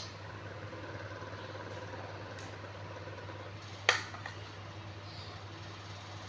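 Steady low background hum with one short, sharp sound about four seconds in.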